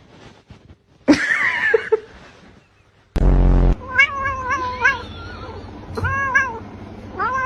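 A cat meowing again and again in long, wavering meows. A short, loud, flat buzz cuts in about three seconds in.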